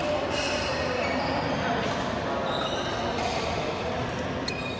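Badminton rally: sharp cracks of rackets hitting the shuttlecock, a few times a second or two apart, with brief squeaks of court shoes on the floor and voices in the background.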